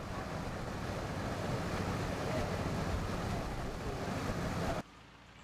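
Motorboat under way: a steady engine note mixed with rushing wind and water. It cuts off abruptly near the end.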